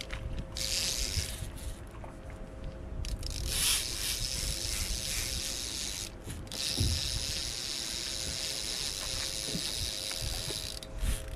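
Fishing reel's ratchet clicking so fast it runs into a buzz, in three stretches: briefly near the start, again about three seconds in, then for about four seconds from the middle.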